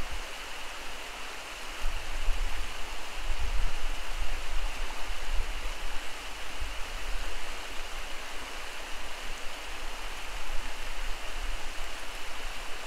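Mountain trout stream running over rocks: a steady hiss of moving water. From about two seconds in, gusts of wind buffet the microphone with a low, uneven rumble.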